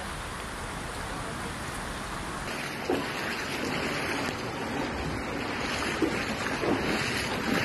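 Steady rushing of muddy floodwater. About two and a half seconds in the sound changes abruptly, with a few faint voices after that.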